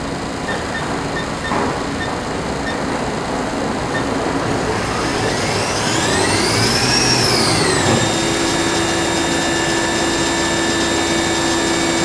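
Haas VF-3 CNC machining center's spindle running with no tool cutting. Its whine glides up and back down about five to eight seconds in, then holds a steady pitch as the spindle settles at a commanded 5,000 RPM.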